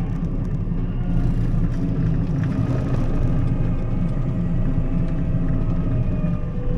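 Combine harvester running steadily as it drives along a road: a continuous low engine rumble with a few steady whining tones over it.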